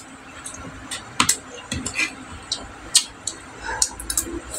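Eating sounds: irregular small clicks and smacks from chewing, and from fingers picking up rice and food off a plate.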